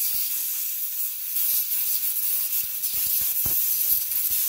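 Compressed-air blow gun hissing steadily as it blows out an engine-bay electrical connector, clearing debris from the pins.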